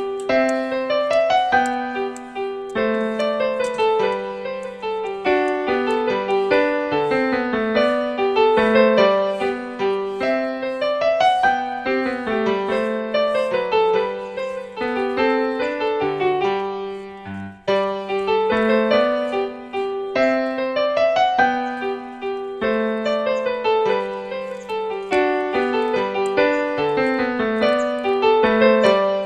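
Background piano music: a melody of quick notes over repeating lower notes, with a brief pause about two-thirds of the way through.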